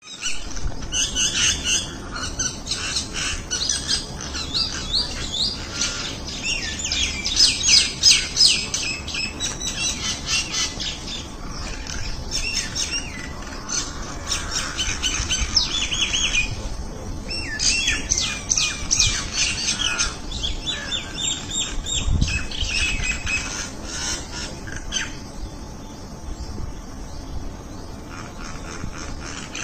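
A flock of small birds chirping and chattering together, with many quick, overlapping calls, thinning out near the end. There is a brief low thump about two-thirds of the way through.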